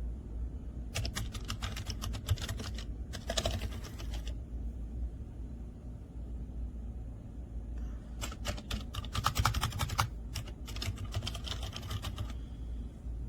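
Typing on a GK GAMAKAY TK75 V2 silent mechanical keyboard: fast runs of keystrokes in four bursts of one to two seconds each, with pauses between them.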